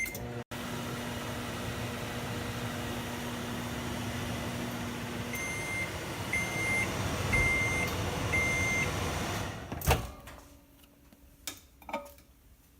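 Microwave oven running with a steady hum, then four evenly spaced beeps, the end-of-cycle signal, about halfway through. A sharp click follows near the end, and then the hum is gone.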